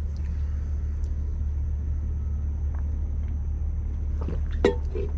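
A steady low rumble, with one sharp click about four and a half seconds in.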